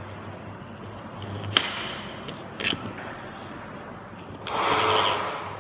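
Handling noise from a small demonstration transformer being rearranged by hand, its coil bobbins, leads and iron rod core moved about. There is a sharp click about one and a half seconds in, a couple of lighter clicks after it, and a louder rustling scrape near the end, over a low steady hum.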